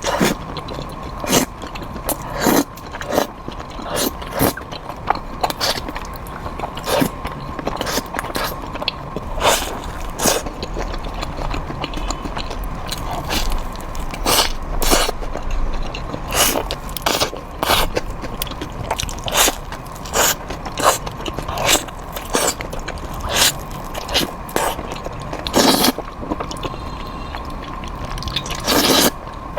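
Close-miked eating: crunchy bites and chewing, with many sharp crunches at irregular intervals, several a second.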